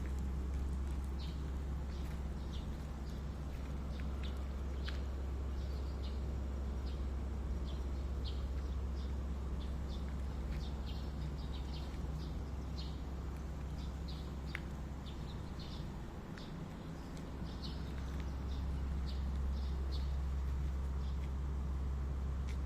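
Birds chirping in short, frequent calls over a steady low rumble.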